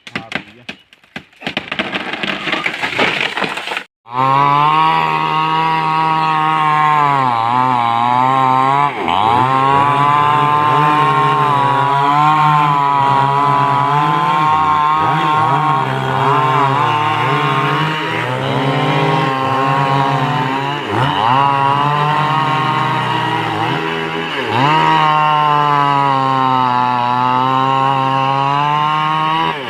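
Wood cracking and snapping for the first few seconds, then a chainsaw running at high revs while cutting mango wood, its pitch repeatedly sagging under load and picking up again.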